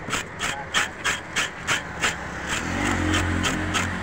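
A metal scaler scraping the scales off a milkfish in quick, even strokes, about three a second. About two-thirds of the way through, a motor vehicle's engine hum comes in underneath.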